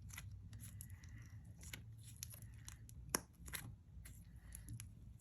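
Slime being pressed and poked by hand, giving faint scattered clicks and small air-bubble pops, with one sharper pop about three seconds in.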